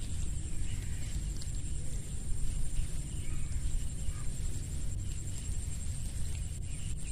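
Outdoor ambience: a fluctuating low rumble of wind on the microphone, with a steady high-pitched trill above it.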